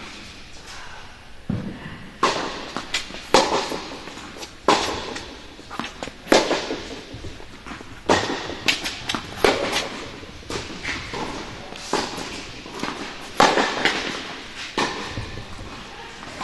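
Tennis rally on an indoor hard court: sharp pops of rackets striking the ball and the ball bouncing, coming every second or so, some in quick pairs, in a large echoing tennis hall.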